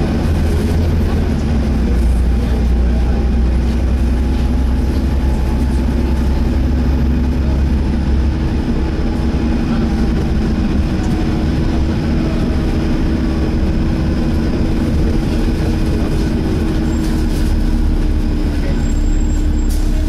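Volvo B7TL double-decker bus heard from inside the saloon: its diesel engine runs steadily under a continuous whine from the cooling fan, which is trying to "hoover". The deep rumble eases about eight seconds in, and the whine sinks a little towards the end.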